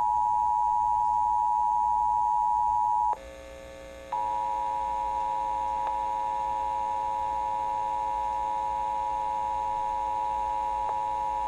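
Emergency Alert System attention signal: a steady electronic two-tone alert. It cuts out for about a second around three seconds in, then resumes slightly quieter.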